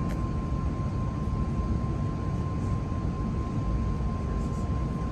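Inside the cabin of an Airbus A380-841: a steady low rumble from its Rolls-Royce Trent 900 engines, with a thin, steady high tone running through it.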